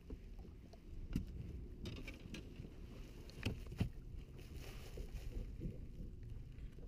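Steady low rumble of wind and water around a small fishing boat, with a few sharp knocks as a walleye is handled onto a plastic bump board; the loudest two come close together about three and a half seconds in.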